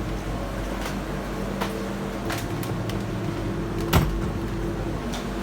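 Steady hum of a walk-in refrigerator's machinery, its Kirby evaporator fans running, with a few light clicks and one sharp knock about four seconds in.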